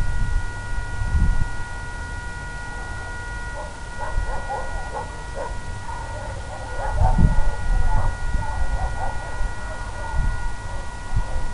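A dog whining in a run of short, high squeaky calls through the middle few seconds. Under it runs a steady whine of several tones, with wind buffeting the microphone near the start and the end.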